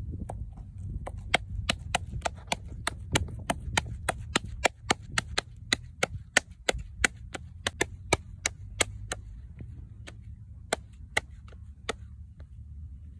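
Palms slapping a ball of dough back and forth to pat it out into a thick flatbread by hand, a fast run of sharp slaps about two or three a second that thins out and slows near the end, over a steady low rumble.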